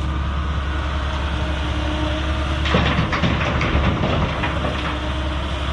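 Diesel engines running steadily while an excavator loads a dump truck. About three seconds in, a bucketful of rock rubble is dumped into the truck bed with a clattering rush that lasts a couple of seconds.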